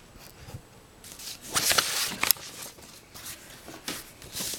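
Sheet of paper rustling and being shifted on a desk, loudest a second and a half to two and a half seconds in with a few sharp clicks, followed by scattered light scratches of a pen on paper.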